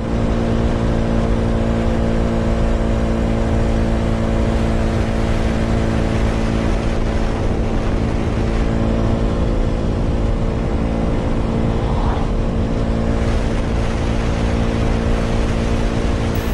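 KTM Duke 200 single-cylinder motorcycle engine running at a steady cruising speed, its pitch holding constant, under a steady rush of wind and road noise.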